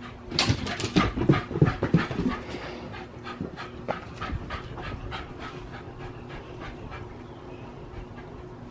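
A small dog panting fast and hard after running, with a burst of loud thumps and scuffling over the first two seconds.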